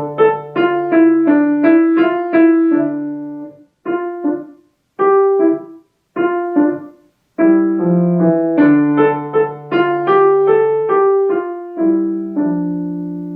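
Piano playing a short beginner minuet in 3/4 time: a right-hand melody in two-note slurs over held left-hand notes, a few short detached note pairs in the middle, then the melody again, ending on a held two-hand chord that fades.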